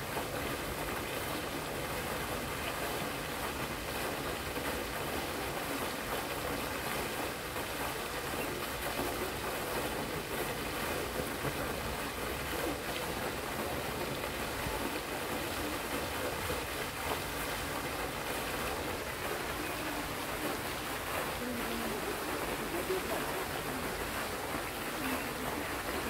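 Pond fountain jets spraying water into the air and splashing back onto the pond surface, a steady rush of falling water.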